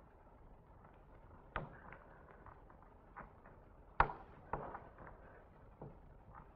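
Faint steady hiss with a few scattered sharp knocks, the loudest about four seconds in.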